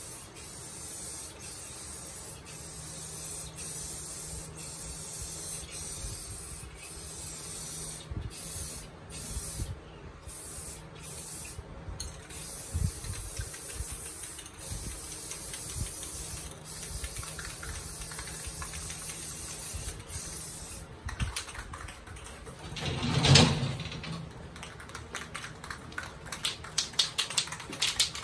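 Aerosol spray-paint can hissing in long steady bursts, with a few short breaks about a third of the way in. Near the end come a brief louder noise and then a run of rapid clicks, like the mixing ball rattling as the can is shaken.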